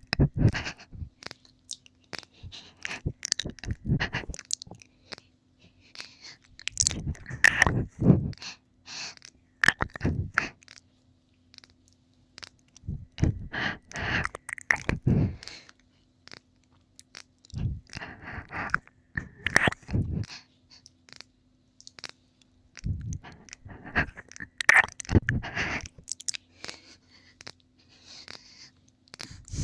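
Close-up wet mouth sounds of ASMR ear-licking: clusters of sticky clicks and smacks lasting a second or two, coming every few seconds with short pauses between.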